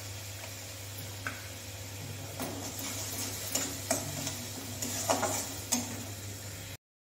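Metal spoon scraping and stirring ground curry-leaf paste in an aluminium kadai over a low sizzle and a steady low hum, with several clinks and scrapes against the pan from about two seconds in. It cuts off suddenly near the end.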